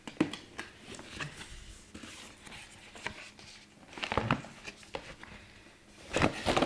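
Cardboard box and packaging being handled while a power supply is unpacked: scattered taps, clicks and light rustling, with a louder cluster of knocks near the end.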